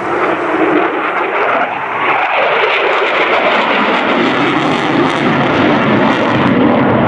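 F-22 Raptor's twin Pratt & Whitney F119 turbofans running in afterburner, a loud rushing jet noise that grows steadily louder. About two seconds in, a tone within it falls in pitch.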